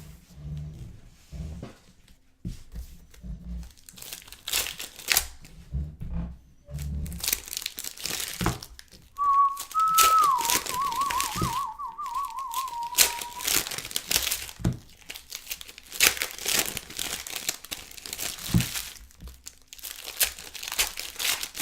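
Trading card pack wrappers crinkling and tearing as packs are opened and handled, in many quick crackles. Partway through, a short whistle-like tone is held for a moment and then warbles.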